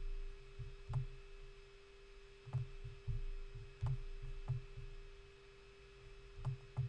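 Computer mouse clicking and handling while panning a map on screen: faint, scattered clicks with soft low knocks, about half a dozen, over a steady low electrical hum.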